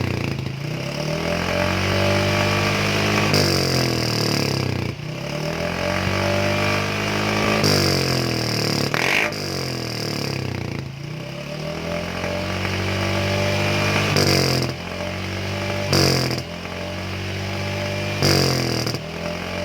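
Yamaha Mio M3 scooter's single-cylinder engine running through a hollowed-out ("bobok") stock muffler, revved up and down over and over. A few short, quick throttle blips come near the end.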